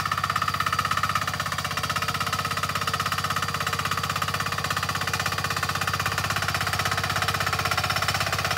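Single-cylinder diesel engine of a 178 two-wheel walking tractor running steadily under load as it pulls a plough through wet paddy mud, a fast, even chugging.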